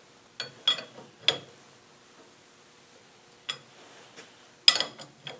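Sharp metal clicks and clinks of a spanner working on a blind bearing puller as it is tightened against a bearing race in a gearbox shaft. They come in two clusters, the loudest clink about four and a half seconds in.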